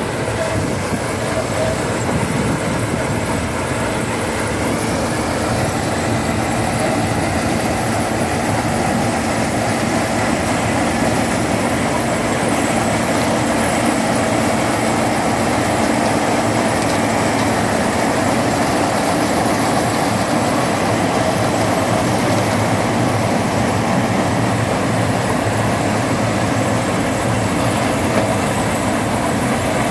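Sugarcane harvester and the John Deere tractor hauling its cane wagon working side by side: a loud, steady drone of engines and machinery that stays even throughout.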